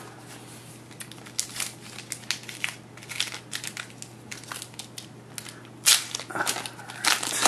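Trading cards and a foil pack wrapper handled by hand, crinkling and crackling in a run of sharp little crackles, with two louder rustles near the end.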